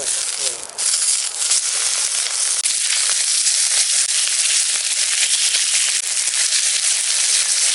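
Steak sizzling hard on a hot pan over a campfire: a loud, steady hiss thick with crackles and spits.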